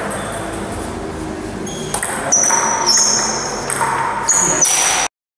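Table tennis rally: the ball clicks off rubber-covered bats and a JOOLA table, about six quick hits, each with a short high ping, starting about two seconds in. The sound cuts off suddenly near the end.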